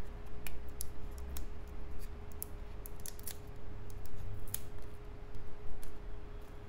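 Fingernails picking at and peeling the clear protective plastic film on a wireless earbud charging case: scattered small scratches and crinkly clicks, over a faint steady hum.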